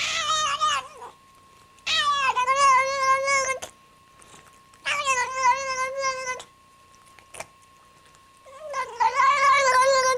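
A cat yowling: three long, wavering yowls of a second and a half to two seconds each, with short pauses between them, and the tail of another at the start. A faint steady tone runs underneath.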